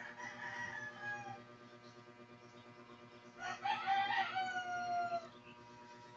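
A rooster crowing twice: a falling call at the start, then a longer crow about three and a half seconds in that ends on a long held, slowly falling note, over a faint steady hum.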